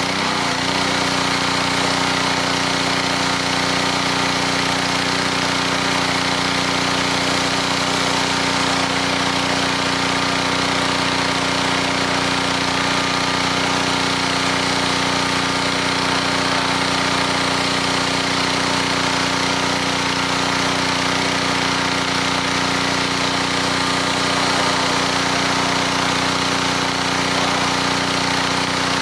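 Honda four-stroke engine on a 2800 PSI gas pressure washer running steadily under load, with the hiss of the high-pressure water jet striking stone.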